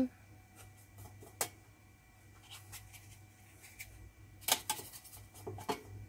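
Faint taps and clicks of a watercolour brush being worked between paper and a metal paint tin: one sharp tick about a second and a half in, then a cluster of clicks near the end.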